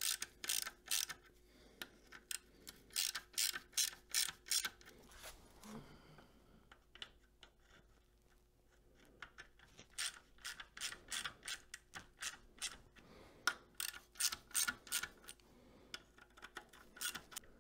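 Hand socket ratchet clicking in short runs, a few clicks a second, as it runs the oil filter housing bolts in, with a pause of a few seconds in the middle.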